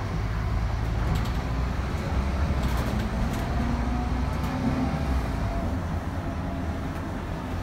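Inside a city bus on the move: a steady low rumble of engine and road noise, with a faint whine that rises slightly in pitch midway. A few light clicks are heard about a second in and again around three seconds in.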